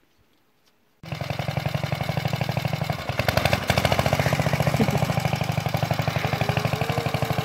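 Near silence for about a second, then the small single-cylinder engine of a walk-behind tractor starts chugging with fast, even beats as it pulls a loaded trailer.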